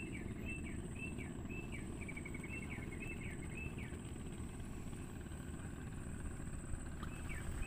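Outdoor riverside ambience: a low steady rumble, with a bird repeating short falling chirps about twice a second for the first few seconds and again near the end, over a steady thin high insect whine.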